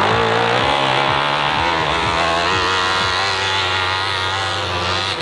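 Dirt bike engine running hard at high revs as the bike climbs a steep hill-climb slope. The pitch wavers up and down in the first second, then holds fairly steady.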